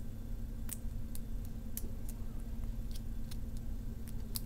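Light, irregular plastic clicks and ticks as fingers handle a small plastic Beyblade part, over a steady low hum.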